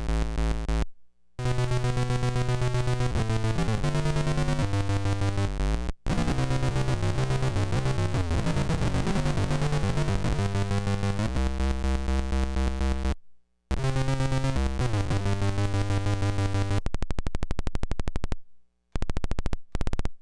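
Electric guitar played through a hand-built circuit-bent noise pedal's octave effects: buzzy, synth-like tones that jump in steps in pitch, cutting out briefly a few times. Near the end the sound breaks into a rapid train of clicks.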